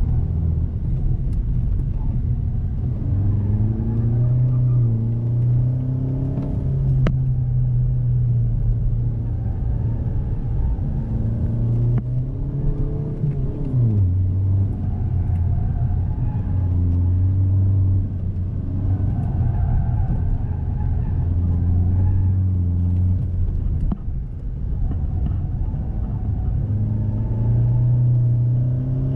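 Hyundai i20's engine heard from inside the cabin while driving, its pitch rising and falling as the driver accelerates and eases off. There is one sharp drop in pitch about halfway through.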